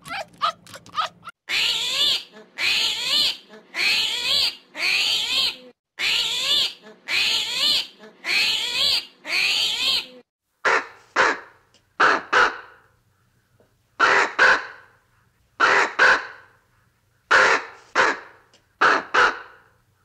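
A series of about ten harsh crow caws, mostly in loose pairs with short silences between. They follow a run of eight longer wavering animal calls about a second apart in the first half, from an unknown animal.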